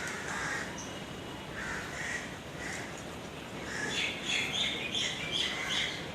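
Crows cawing, a few harsh calls in the first seconds and then a quicker run of calls and chirps near the end, over a steady low street hum.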